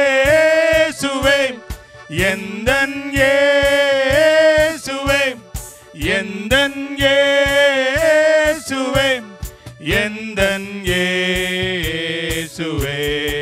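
Two men singing a Tamil Christian worship song into microphones, in long drawn-out phrases with held, wavering notes and brief pauses between lines.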